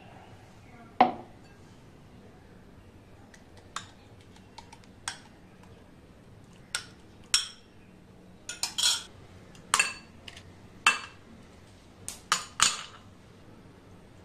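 A series of sharp clinks against a tall drinking glass, some with a short glassy ring, as banana puree and then ice cubes go into it. A single heavier knock about a second in, the loudest sound.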